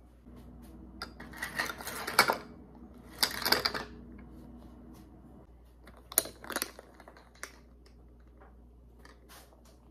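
Clinks and scrapes of a glass coffee cup being handled on a stone countertop: a straw pushed in and knocked against the glass, a lid fitted on, and the cup picked up. The sounds come in three short bouts of clatter.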